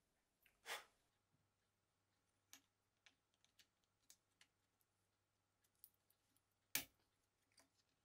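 Scattered light clicks and taps of laptop parts being handled, with two sharper knocks, one about a second in and one about a second before the end.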